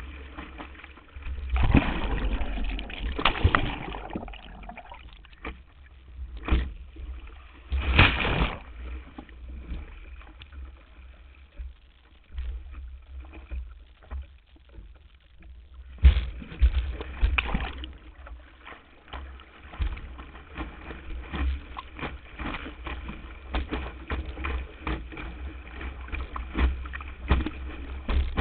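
Water rushing and splashing against a board-mounted camera on a windsurf board sailing through chop, with a constant low wind rumble on the microphone. Louder surges of spray come about two seconds in, around eight seconds and again around sixteen to eighteen seconds. It is quieter in between, while the board sits still in the water.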